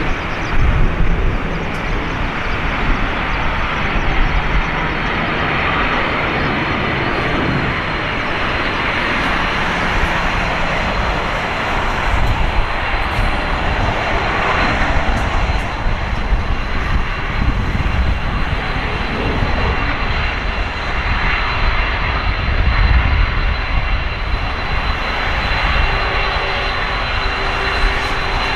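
Boeing 747-400F freighter's four jet engines running as the plane rolls out and slows on the runway after landing. A continuous rumble with gusty low swells and a thin, steady high whine.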